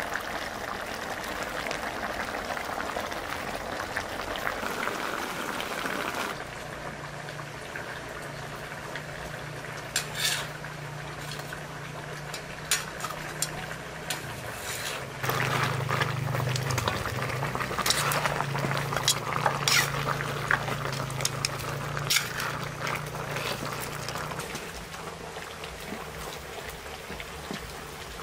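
A large pan of lamb broth boiling hard over a fire, bubbling steadily, with scattered clinks of a metal spoon and ladle against the pan as it is stirred. A low steady hum sits under it through the middle.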